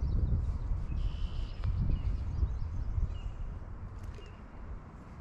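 Uneven low rumble of outdoor noise on the microphone, fading toward the end, with a few short, high bird chirps about a second in and again around three seconds.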